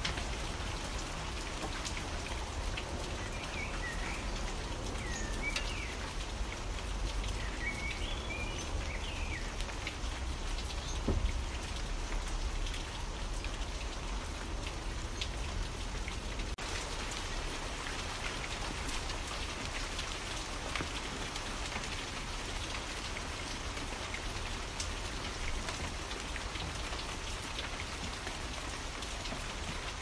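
Steady rain falling on a surface, a dense patter of drops. A few short bird chirps come in the first third, and there is one louder drop or tap about eleven seconds in.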